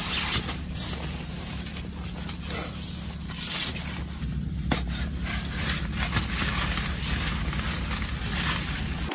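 Nylon fabric rustling and crinkling as a sleeping pad is pulled from its stuff sack and spread on a tent floor, over a steady low wind rumble.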